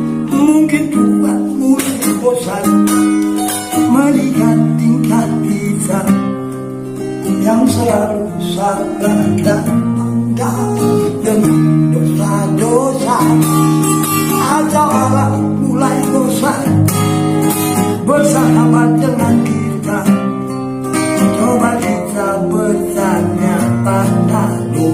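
Acoustic guitar played alone in an instrumental passage: quick picked melody notes over held bass notes.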